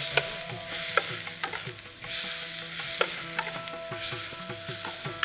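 A metal spatula stirs and scrapes a green leaf paste frying in coconut oil in a stainless steel pan. There is a steady sizzle with irregular sharp clicks where the spatula hits the pan. The paste is being sautéed on moderate heat.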